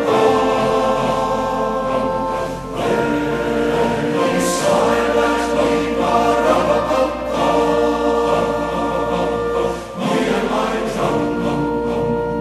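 Choir singing long held chords, with short breaks between phrases about three and ten seconds in.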